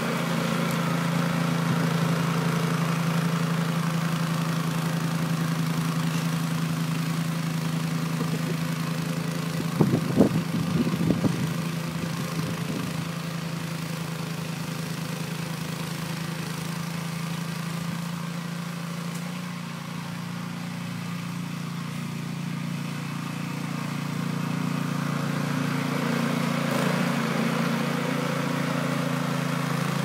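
Walk-behind gas snowblower running steadily under load while throwing snow, its engine a constant hum. A brief cluster of loud knocks about ten seconds in.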